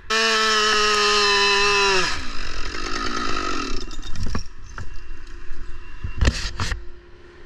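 Chainsaw running at full throttle for about two seconds, then dropping in pitch as the throttle is released. A rougher rumble follows, then a few sharp knocks later on.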